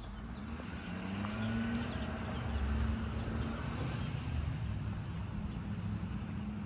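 A steady engine hum with low rumble, rising slightly in pitch about a second in and growing loudest around the middle.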